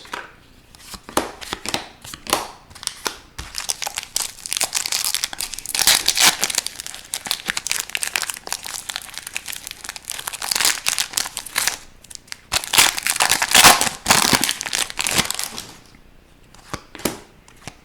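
Crinkly trading-card pack wrappers being handled and torn open, with two louder bouts of crinkling and tearing, then a few light taps near the end.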